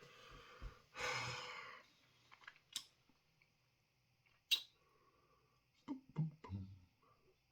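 A person breathing out hard about a second in, then a few sharp mouth or lip clicks and short throaty noises near the end, as he clears his throat and coughs lightly from the chilli heat.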